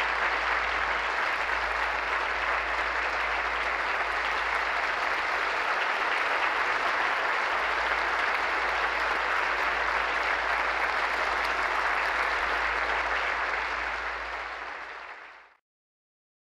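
Large audience giving a standing ovation: steady, dense applause that fades out and stops near the end.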